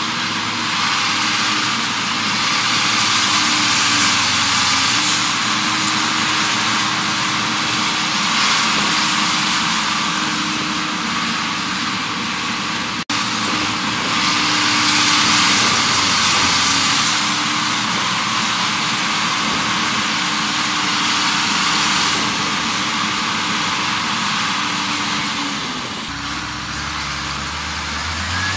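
Large diesel farm tractor engines running steadily as tractors work in deep mud, the engine note dipping slightly now and then. A broad hiss swells and fades over the drone.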